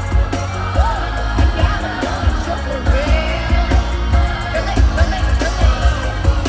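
Live K-pop song played over a concert sound system: female vocals singing over a heavy bass beat.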